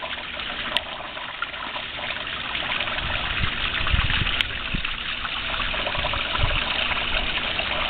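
Steady trickling and splashing of water flowing into a backyard koi pond, with low rumbles from a few seconds in.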